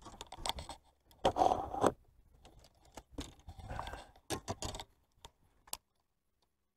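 Fishing gear being handled: scattered clicks and knocks with two longer scraping rustles, the noise stopping about a second before the end.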